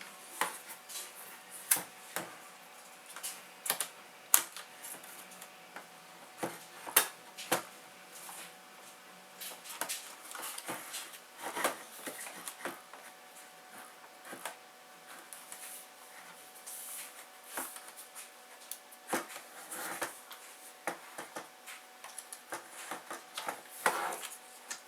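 Plastic dashboard trim and its clip tabs being worked by hand: irregular sharp clicks, ticks and small snaps with short pauses between, as the panel is pried loose.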